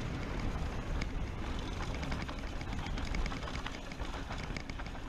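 Mountain bike riding down a loose dirt trail: a steady wind rumble on the microphone with tyre noise and many sharp rattles and clicks from the bike over rough ground.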